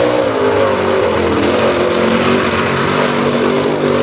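Unlimited mud bog buggy's engine held at high revs, its pitch dipping slightly and climbing again, as the tyres churn through the mud pit.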